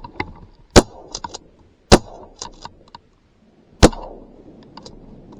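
Three shotgun shots fired at waterfowl: two about a second apart, then a third about two seconds later, with fainter clicks between them.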